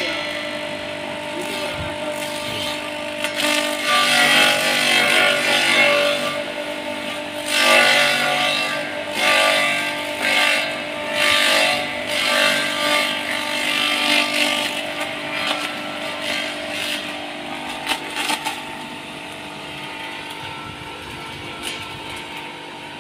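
Homemade forage shredder (chopper) built from used parts, running with a steady motor tone. Repeated surges of chopping and rattling come as bunches of leafy stems are fed into its hopper. Near the end it runs on more quietly and evenly, with a few sharp clicks.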